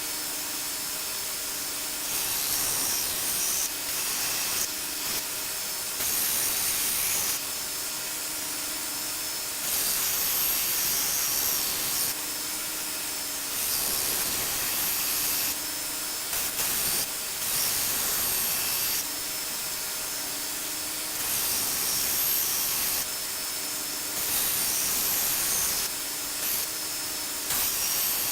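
A 1x42 belt sander running steadily while a steel cleaver blade is pressed to its 80-grit belt in about a dozen grinding passes, each a loud hissing rasp lasting a second or two, grinding the bevel.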